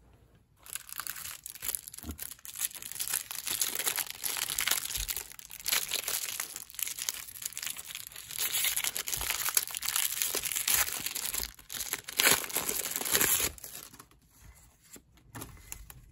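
Clear plastic wrapper of a 1993 Diamond Marks card pack being torn open and crinkled, a dense crackling that runs for about thirteen seconds. It dies down near the end to a softer handling of the freed stack of cards.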